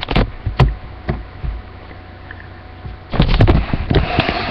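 Handling noise: a few sharp knocks and clicks in the first second, then a dense burst of clicks and rustling from about three seconds in.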